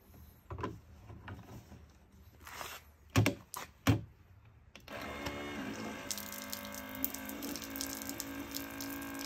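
Plastic clicks and knocks as a folding USB water pump is fitted onto a water jug and its top button is pressed. About five seconds in, a steady sound with several held tones and a hiss begins: the pump's small motor running and pushing water out.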